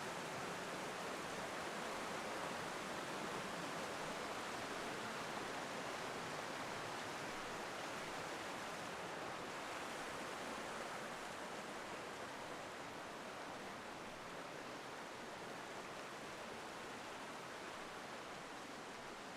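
A river's flowing water makes a steady rush with no distinct splashes, easing slightly over the second half.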